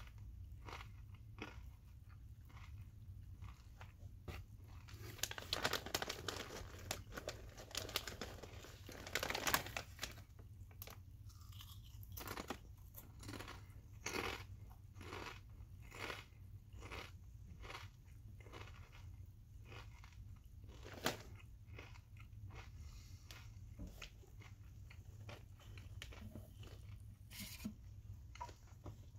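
A person chewing kettle-cooked potato chips with the mouth full: a long run of short, crisp crunches, thickest and loudest from about five to ten seconds in, with one sharper snap about twenty-one seconds in.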